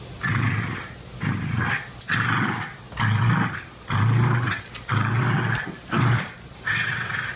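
West Highland White Terriers growling in play while tugging a rope toy: about eight rough growls in a row, roughly one a second.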